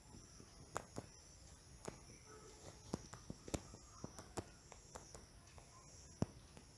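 Faint, irregular soft clicks over a low steady hiss: fingertip taps on a smartphone's on-screen keyboard while typing and deleting text.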